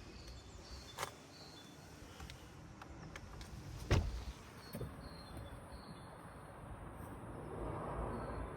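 A few light clicks and one heavy thump about four seconds in, then a lighter knock, over a faint outdoor background.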